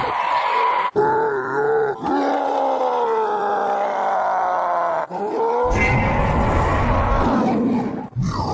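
Creature vocal sound effects spliced one after another: pitched grunting calls that rise and fall in pitch, then a low, rough roar from a little past halfway. Each clip is cut off abruptly.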